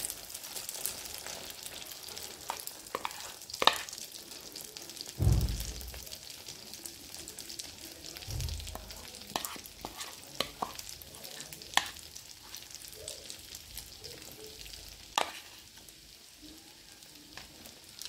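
Egg, bread-crumb and cornflake batter sizzling in hot oil in a non-stick frying pan as it is poured in and spread, the hiss slowly fading. Light clicks and scrapes of utensils on the pan, and two dull thumps about five and eight seconds in.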